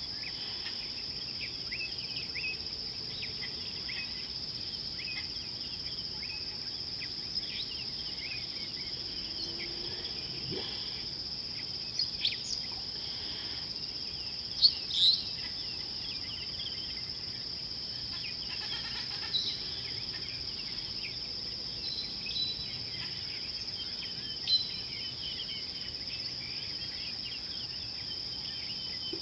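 A steady high-pitched insect drone from the bush, with short bird chirps dropped in here and there. The loudest chirps come about halfway through.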